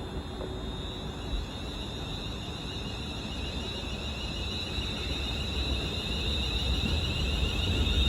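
An electric train approaching on the main line, with a high, wavering whine and a low rumble growing steadily louder.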